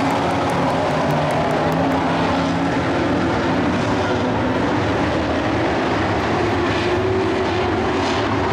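A pack of dirt-track race trucks running hard together: a steady, loud drone of several engines at once, their pitches wavering as the trucks go through the turn and down the straight.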